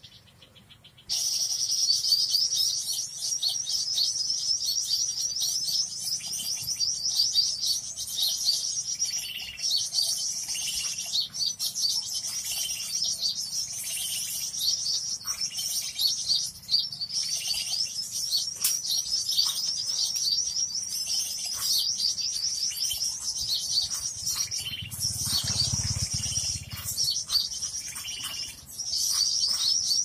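Bird-lure recording of small songbirds: dense, rapid, high-pitched chirping and twittering, starting after about a second of near silence and running on without a break. A faint low rumble comes in briefly near the end.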